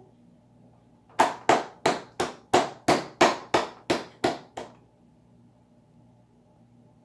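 A baby's hands slapping a plastic high-chair tray, about eleven sharp slaps at roughly three a second, stopping about halfway through.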